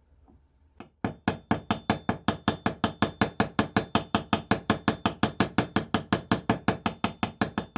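Ball-peen hammer giving rapid light taps, about seven a second, on a steel Mauser 98 trigger guard resting on a wood block, peening a sharp chip in the metal flat. The taps start about a second in and carry a faint high metallic ring.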